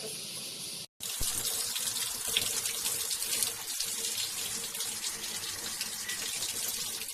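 Water running steadily, as from a tap, starting abruptly about a second in and cutting off suddenly at the end.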